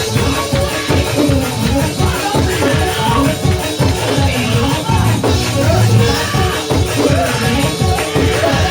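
Live gospel praise music played in church, with a steady beat and rhythmic percussion running throughout.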